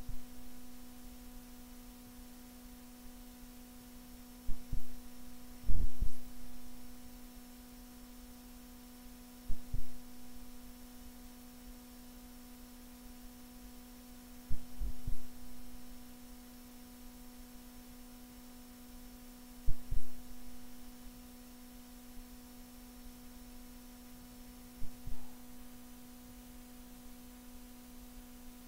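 A steady low hum with dull, low thumps, mostly in pairs, repeating about every five seconds.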